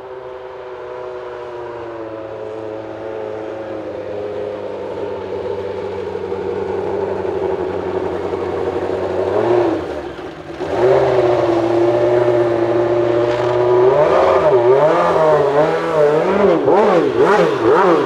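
Benetton B190 Formula One car's 3.5-litre Ford V8 at high revs, growing steadily louder as it approaches. Just before halfway the note briefly drops away, then returns loudest, with the revs rising and falling sharply several times near the end.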